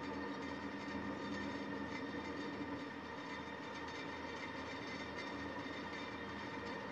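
Steady mechanical drone with a constant hum, from a cable road ferry's engine running during the crossing.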